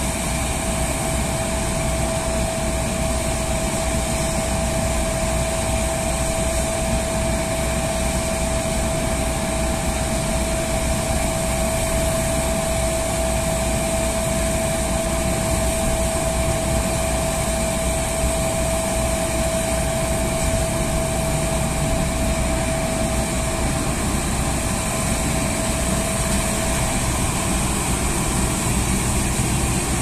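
Ceksan CityRay street sweeper truck running its suction system, with the hand-held leaf hose vacuuming fallen leaves from the curb: a loud, steady machine drone with a steady whine that fades out near the end.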